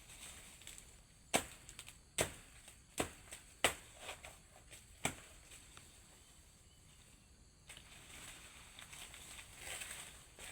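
A machete chopping into a banana plant during the harvest of horn plantains: five sharp strikes over about four seconds, with a few lighter ones between, then a rustling of leaves or plant material near the end.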